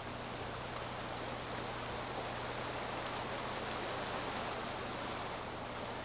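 Shallow rocky stream running steadily: an even rush of water over stones.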